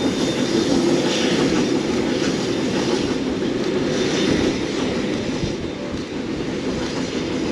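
Railway carriages rolling along the track just below, a steady rumble of wheels on rail that eases a little near the end.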